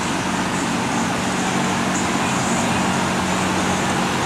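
Large drum fan running in a paint tent: a steady rushing of air with a low motor hum.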